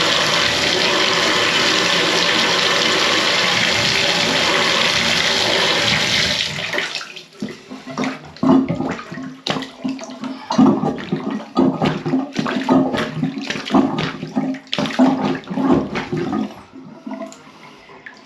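Water running hard into a slow-draining bathtub for about seven seconds, then stopping, followed by a rapid irregular series of plunger strokes working the clogged tub drain.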